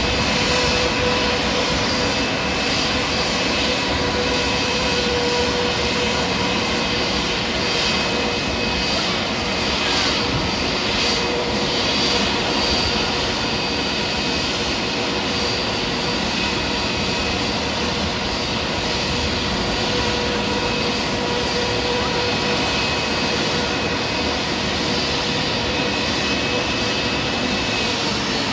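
Turbofan engines of jet airliners taxiing at low thrust: a steady rush of engine noise with a steady high whine over it.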